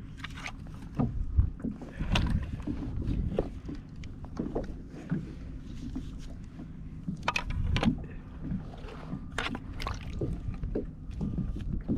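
Irregular knocks, taps and clatter on a kayak as a freshly caught redfish and gear are handled for measuring, over a steady low rumble of wind on the microphone.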